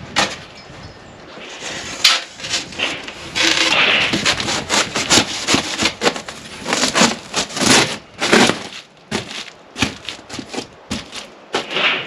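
A foil-faced foam insulation sheet being worked into a window frame: irregular rubbing, scraping and crackling of the foam against the frame.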